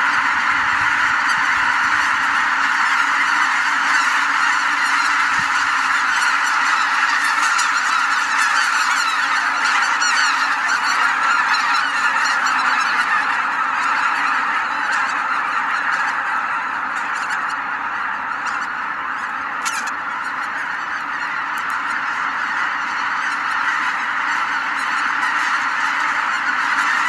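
A huge flock of greater white-fronted geese calling all at once as they lift off the roost lake and fly over at dawn, hundreds of honking calls merging into one dense, continuous clamour. It eases slightly a little past halfway, then builds again.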